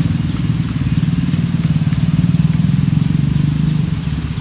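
A small engine running steadily with a rapid low pulse, dropping away near the end.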